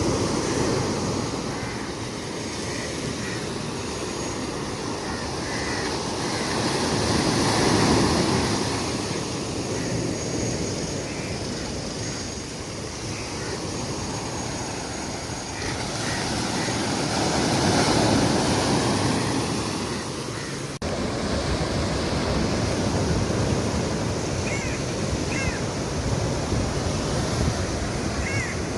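Ocean surf: waves washing in continuously, swelling up twice, with a sudden break about 21 seconds in before the wash resumes.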